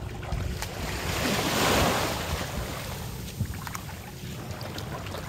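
Shallow sea water washing around the hull of a moored wooden outrigger boat, with wind rumbling on the microphone; the water swells louder about a second and a half in, then eases off.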